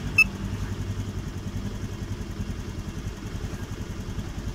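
Honda Vario 110 scooter's single-cylinder engine idling steadily, with one short electronic beep from a handheld diagnostic scanner's key press about a quarter second in.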